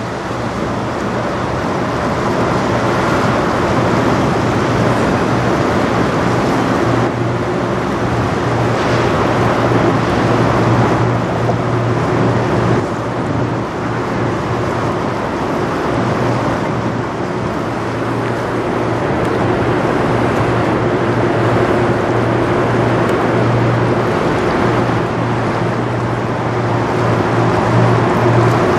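Loud, steady drone of a 1000-foot lake freighter's engines and machinery passing close by, with a constant low hum, over the rushing wash of water churned up at its stern.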